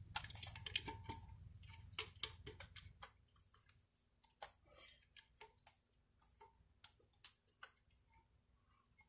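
Faint crinkles and light clicks from a plastic bread bag being handled and bread torn by hand. The sounds come more often in the first few seconds, then thin out to scattered single clicks.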